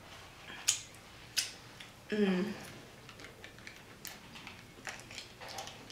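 Fast-food packaging being handled and opened: a few sharp crinkly clicks of paper or plastic wrapping. A short vocal sound comes about two seconds in.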